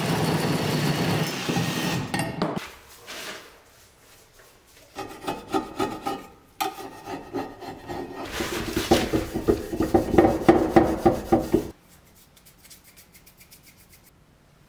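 A reciprocating saw cuts through a corroded metal sink drain at the start. Then comes a long run of quick, repeated scrubbing and scraping strokes on an old bathroom sink, which stop suddenly near the end.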